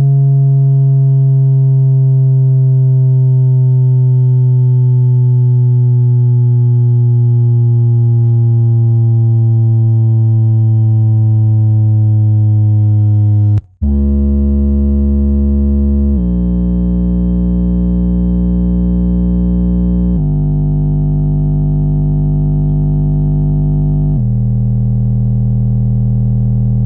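Subwoofer playing deep bass test tones: a steady tone rich in overtones that sinks slowly in pitch, then, after a brief cut about fourteen seconds in, a run of deeper notes stepping to a new pitch every four seconds or so.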